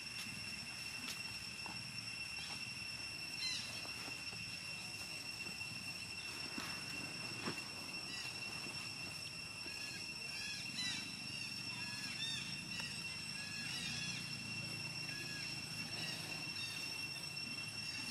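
Outdoor ambience with a steady high-pitched whine throughout, a few scattered clicks, and a run of short, squeaky chirps in the second half.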